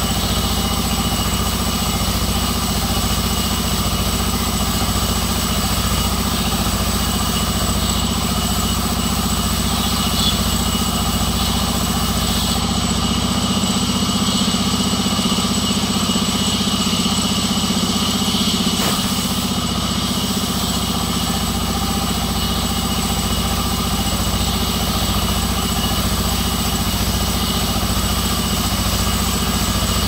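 Sawmill band saw running steadily as its vertical blade rips lengthwise through a thick jackfruit-wood plank: a constant machine drone with steady high tones, its sound shifting for several seconds around the middle of the cut.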